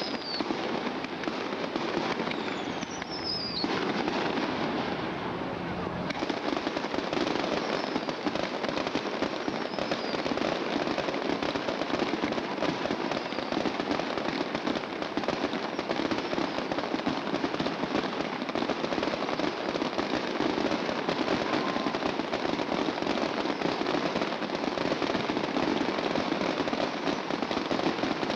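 Fireworks going off: a dense, continuous crackling and popping, with a falling whistle a couple of seconds in.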